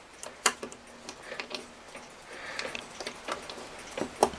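Small screws clicking and tapping at irregular moments as they are handled and slid into the holes of the clock's hanger bracket, with a short scraping rustle about halfway through.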